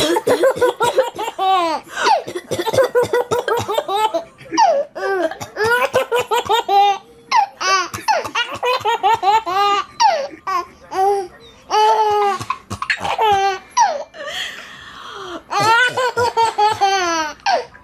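A baby laughing hard: high-pitched belly laughs in runs of quick pulses, with short breaks for breath between runs.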